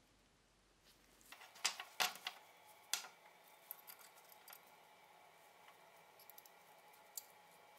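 Small steel parts of an antique musket lock clicking and clinking against the lock plate as they are handled and fitted by hand: a quick cluster of sharp clicks, then lighter scattered ticks, with one more sharp click near the end.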